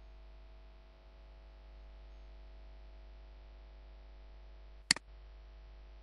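Steady low electrical hum and hiss of a recording setup, with one short, sharp click about five seconds in.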